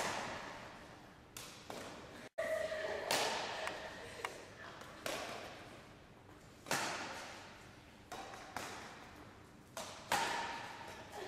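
Badminton racquets striking a shuttlecock in a rally of high clears: a sharp strike every second or two, each echoing through the hall.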